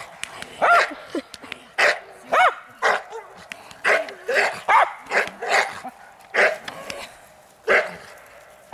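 Young dog barking repeatedly, about nine short barks roughly a second apart, each one rising and falling in pitch.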